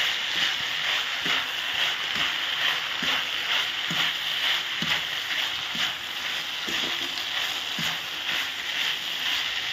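Rice with soy sauce and vegetables sizzling in hot oil in a non-stick kadai, stirred and turned over with a plastic spatula about once a second.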